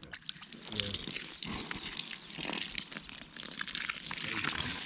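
Rustling and crinkling of camping gear, nylon bags and stuff sacks, being handled and packed away.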